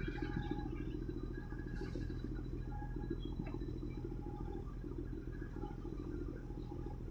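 Low, steady rumble of ship engines across the water, from the departing Panamax bulk carrier and the small boat running alongside it, with faint higher tones coming and going.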